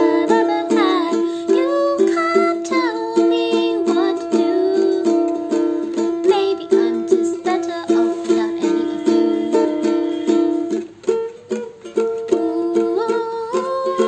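A ukulele strummed in a steady rhythm while a woman sings over it. The strumming and voice drop away briefly about eleven seconds in, then pick up again.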